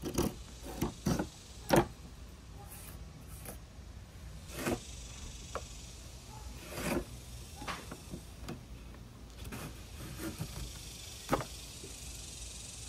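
Hand plane cutting a groove along a small wooden post: a dozen or so short, irregular strokes and scrapes.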